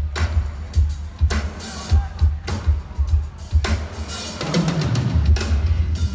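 Live rock band playing an instrumental passage over a PA: the drum kit keeps a steady beat of kick drum and snare hits about every half second, with bass and electric guitars underneath.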